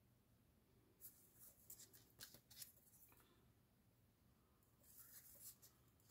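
Faint scratching of a pen drawn across a small piece of paper, in three short spells of strokes: about a second in, around two seconds in and about five seconds in, with a few light ticks of the paper.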